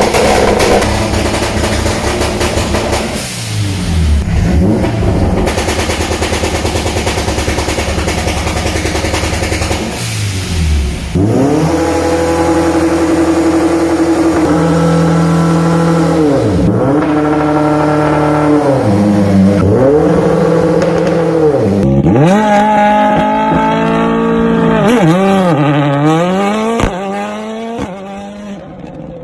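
Subaru BRZ's flat-four engine on a MoTeC M150 launch control, held at the limiter with the exhaust crackling and banging in rapid pops. The revs then drop and climb again and again as the car moves off. In the last few seconds a WRC rally car accelerates hard, its pitch climbing through several gear changes and fading as it draws away.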